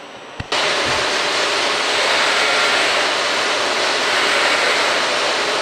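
Loud, steady rushing machine noise of a CNC bandsawing centre and its automatic loader running in the workshop, starting abruptly about half a second in.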